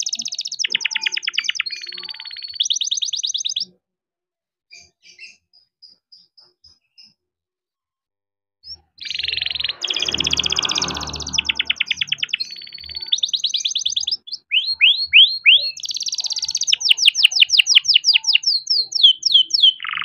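Young male yellow canary singing in long rolling phrases of fast trills and rapid repeated notes. It breaks off for a few seconds with only a few soft chirps, then starts a second long phrase that includes quick falling sweeps.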